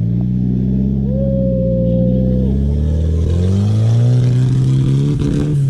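Car engine pulling under load. Its pitch dips about three seconds in, then rises steadily as it revs up, and a brief higher steady tone sounds from about one second in.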